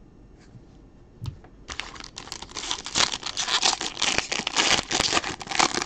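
Foil trading-card pack wrapper crinkling and tearing as it is pulled open by hand, starting a little under two seconds in after a few faint clicks.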